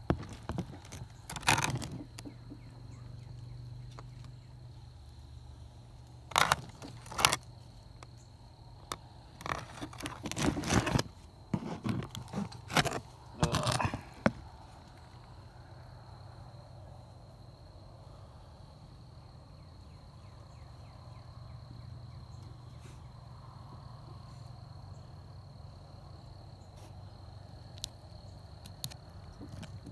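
Handling noise from a quartz crystal cluster being gripped and turned in the hand: sharp clicks, knocks and scrapes in bursts through the first half, then quieter. A low hum and a faint, steady high tone run underneath throughout.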